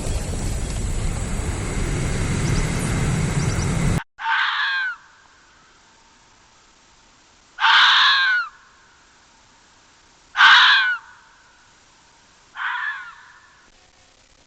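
About four seconds of loud, even rushing noise that cuts off suddenly, followed by an animal's harsh calls: four of them, each under a second long, spaced two to three seconds apart.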